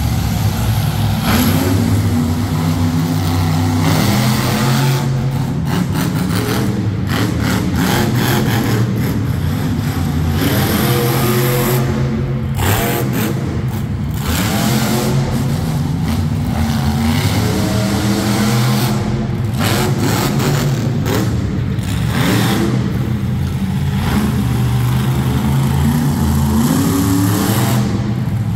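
Monster truck engine revving hard, its pitch climbing and dropping back again and again as the throttle is worked.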